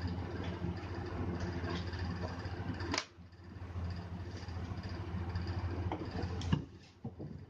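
Handling of drone accessories during unboxing: a sharp click about three seconds in and a knock near the end, over a steady low hum.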